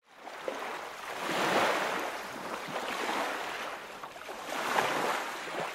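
Ocean surf: waves washing in as an even hiss that fades in and swells twice, about a second and a half in and again near the end.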